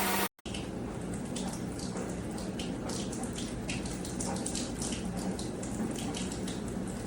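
A steady vacuum-motor hum cuts off abruptly in the first moment. Then water runs and splashes steadily, with irregular spattering.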